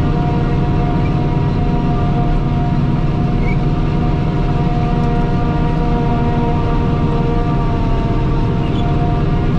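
A farm machine's engine running steadily at a constant speed, with an even hum and whine.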